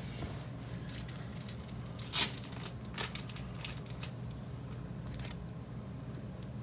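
Cards being handled and slid into thin plastic card sleeves: soft rustling with a few sharp plastic clicks and crinkles, the loudest about two seconds in and another about three seconds in, over a steady low hum.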